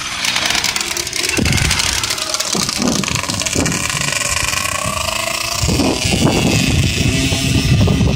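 Small pocket-bike engines buzzing at high revs as the bikes race. One passes close at the start and its high whine falls in pitch as it moves away, while the others keep up a steady buzz over a low rumble.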